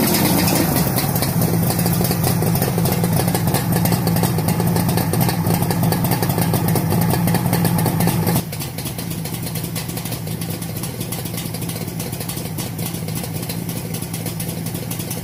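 Suzuki GT 750 water-cooled three-cylinder two-stroke engine idling steadily, its revs just settling after a blip. About eight seconds in it turns suddenly quieter and duller but keeps idling.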